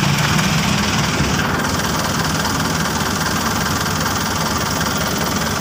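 Jeepney's diesel engine running steadily, heard from inside the passenger cabin.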